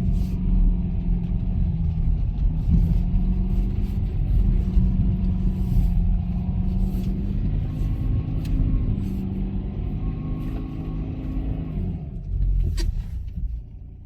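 BMW X3 E83's engine working steadily under load as the xDrive SUV drives through snow and mud, with heavy low rumble and scattered knocks. The engine eases off briefly, then surges once more near the end.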